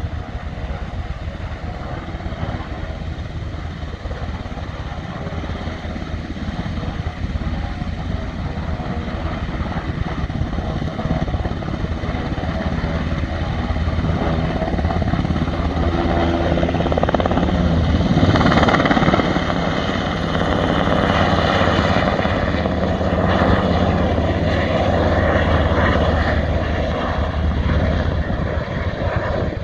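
US Coast Guard MH-60 Jayhawk helicopter taking off, its rotor and turbine engines running steadily, growing louder about halfway through as it picks up speed and climbs away.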